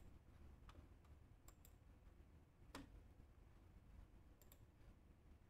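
A few faint computer mouse clicks, some in quick pairs, over near-silent room tone.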